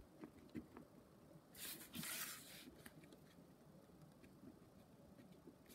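Near silence with faint writing sounds: a few light taps and one scratchy stroke lasting about a second, about one and a half seconds in.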